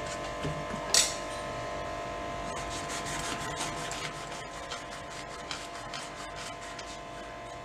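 Kitchen knife sawing through the tough spiky rind of a raw jackfruit on a wooden cutting board: a run of quick rasping scrapes. A single knock about a second in as the fruit is set on the board.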